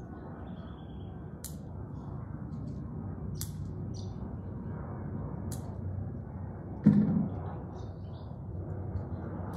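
Garden ambience: a steady low rumble with birds chirping now and then. A single dull thump stands out about seven seconds in.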